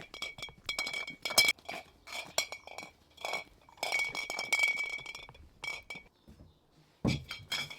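Glass milk bottles clinking and knocking against each other in a rapid run of ringing clinks, pausing briefly about six seconds in before more clinks near the end.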